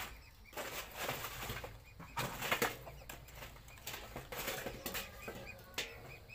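Charcoal fire in a metal basin being fanned with a flat wooden board: a series of whooshing strokes of air, pushing the coals hotter for grilling.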